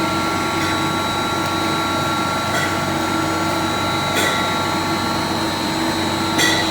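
Industrial pump's electric motor running with a steady whine made of several tones over a noisy hum, with a few short clicks.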